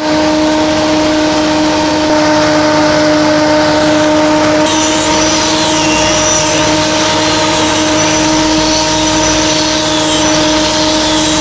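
Homemade exhaust fan running: an electric motor spinning the impeller inside a steel drum housing, giving a loud, steady rush of air over a strong, steady hum.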